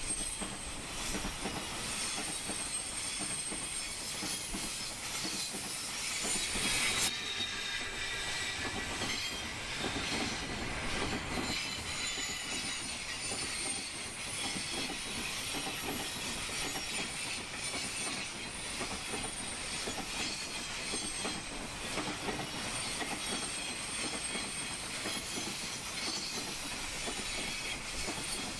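JR Freight Koki container flatcars of a long freight train rolling past, wheels running steadily over the rails with a high thin squeal, loudest about a quarter of the way in.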